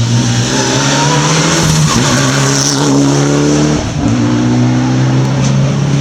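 Rally car engine at high, steady revs as the car approaches on the stage, with two brief dips in the note about two and four seconds in.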